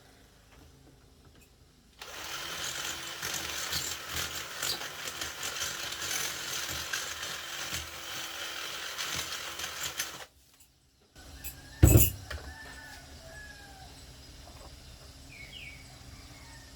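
Electric drill boring a hole into the wall for about eight seconds, then stopping. A single loud knock follows a couple of seconds later.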